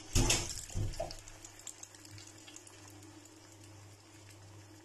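Eggplant omelette mixture going into hot oil in a frying pan: a couple of sharp knocks in the first second, then a faint, steady sizzle of the egg frying.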